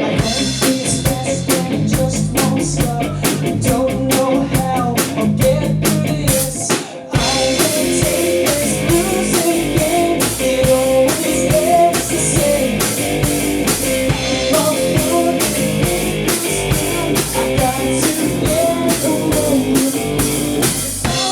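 Rock band playing with drum kit and guitar at a steady beat. Just before seven seconds in the drums briefly drop out, then the band comes back in fuller with cymbals crashing.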